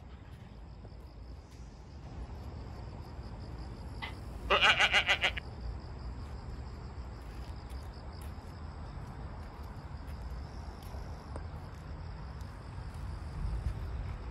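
Insects trilling steadily, a high pulsing drone, with a low rumble underneath. About four and a half seconds in, a loud rapid rattle lasts about a second.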